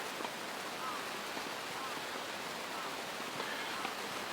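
Steady hiss of wind outdoors, with a few faint, distant crow calls.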